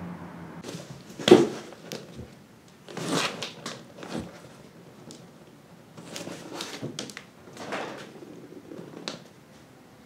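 Cats scuffling on a cardboard box: a sharp thump about a second in, then several softer knocks and scrapes of paws and bodies against the cardboard.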